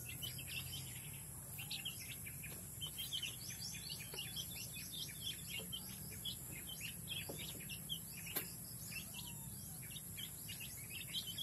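A flock of young chicks, under a month old, peeping continuously, with many short high cheeps overlapping one another.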